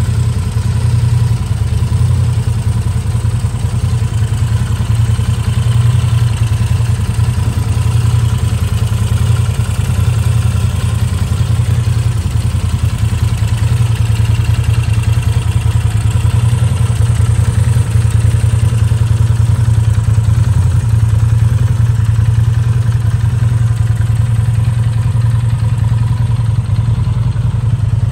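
Moto Guzzi V9 Bobber's air-cooled transverse V-twin idling steadily.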